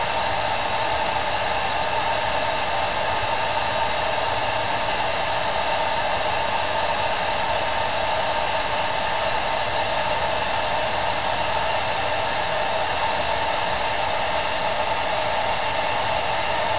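Handheld hair dryer running steadily: a constant rush of air with a steady hum, drying freshly applied liquid latex on a mask.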